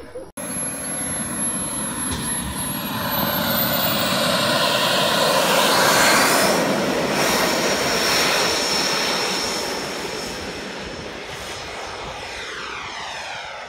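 Turbine engine of a JTM 1.7 m Viper model jet at high power on its takeoff run. A high whine climbs in pitch early on, the noise is loudest about six seconds in as the jet passes, then it fades as the jet climbs away.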